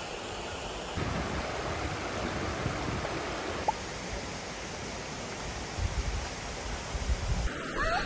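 Mountain stream water flowing, a steady rush, with gusts of wind on the microphone near the end.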